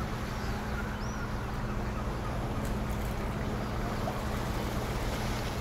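Harbour ambience: a steady low hum over a constant wash of noise.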